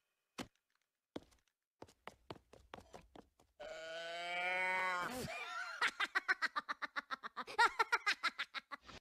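A few light taps and clicks, then a cartoon Minion's high voice holding a squeal for about a second and a half that drops off at the end, followed by a run of quick giggles.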